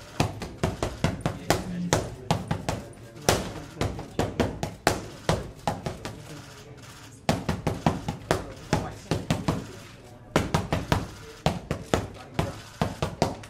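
Boxing gloves smacking into focus mitts in fast combinations: long runs of sharp slaps in quick succession, broken by two short pauses.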